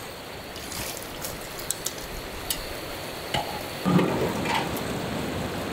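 Steady rush of a fast-flowing river, with a few light clicks and a brief wet rustle about four seconds in as a hand handles raw squid pieces and crabs.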